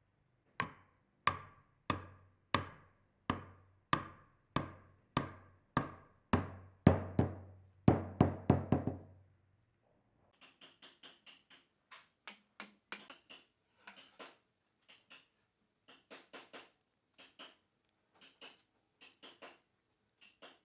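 Hammer striking a wooden tenon to drive it down into the mortise of a table leg: about a dozen sharp, even blows, one roughly every two-thirds of a second, coming faster and louder towards the end. After a short pause there are lighter scattered clicks and taps as the wooden parts are handled.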